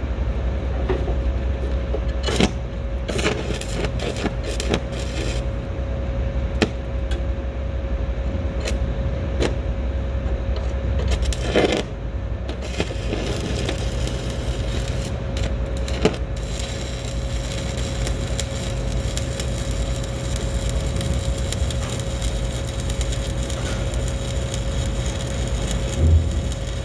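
Stick welding with a 1/8-inch 7018 rod at 127 amps: the arc crackles and sizzles. In the first half the sound is broken by scattered sharp clicks; from about halfway it runs on as a continuous crackle. A steady hum lies underneath.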